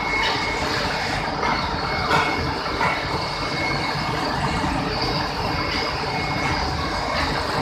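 Steady, loud din of sugar-mill machinery running, with electric motors and pumps turning, a faint steady whine over it and a few light knocks.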